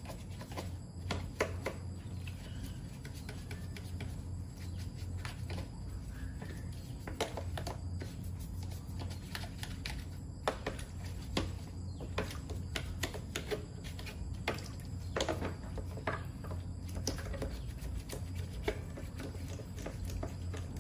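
Irregular clicks and light knocks of tools and parts being handled during repair work, over a steady low hum.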